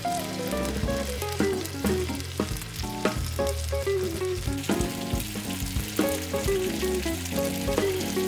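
Sliced pork jowl frying and sizzling on a hot pan over a campfire, with background music playing over it.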